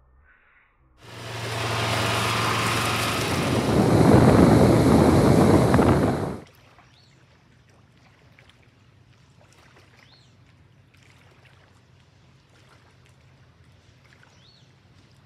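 A loud rushing, crackling noise starts about a second in, lasts about five seconds and cuts off abruptly. It gives way to faint outdoor lakeshore ambience with a low hum and a few short high chirps.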